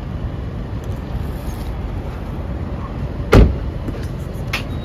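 Steady low rumble of a car heard from inside the cabin, broken once by a single loud thump about three and a half seconds in, with a few faint clicks near the end.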